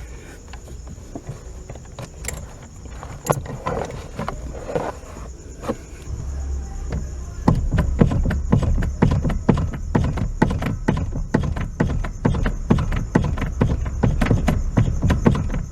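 Fiat Uno manual steering giving a rapid knocking ('toc, toc') as the steering is worked, starting about halfway through and going on as fast repeated knocks. With the steering shaft's small universal joint no longer clamped, the knock comes back, pointing to play in that joint rather than in the steering rack. Before the knocking, a few scattered metallic clicks as the locking pliers come off.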